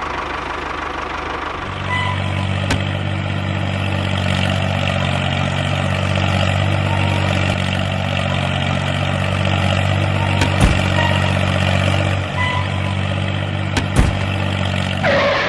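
Tractor engine running steadily with an even low chug. It gets a little louder after about two seconds, and a few sharp clicks sound over it.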